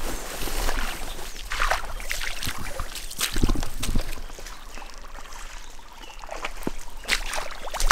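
Footsteps squelching through wet mud and shallow water, with clothing and gear rustling, in an uneven walking rhythm.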